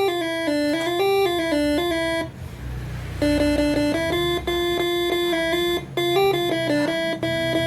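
Basuri telolet air horn, six trumpets driven by an electronic tune module, playing a melody of stepping and held notes. There is a brief break with a rushing noise about two and a half seconds in, then the tune starts again.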